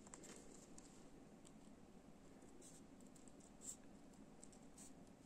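Faint snips of scissors cutting paper: a few scattered light clicks, the clearest about three and a half seconds in.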